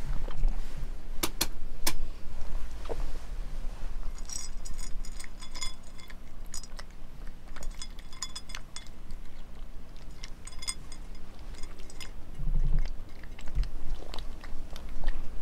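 A cat crunching dry kibble from a small plate, a quick run of crunches and clicks. Teeth and kibble clink against the plate now and then, most often between about four and eleven seconds in.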